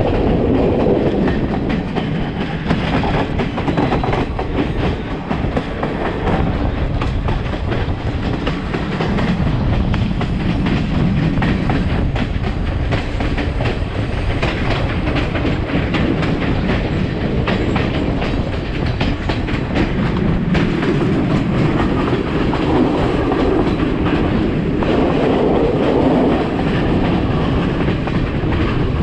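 Sri Lanka Railways passenger train running along the line: a steady rumble with a dense run of clicks and rattles from the wheels and carriages.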